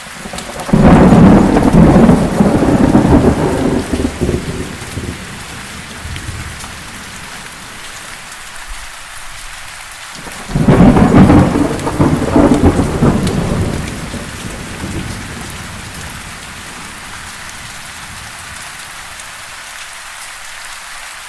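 Heavy rain falling steadily, with two loud rolls of thunder: one rumbling in just under a second in and fading over about four seconds, the other about eleven seconds in, fading over about three seconds.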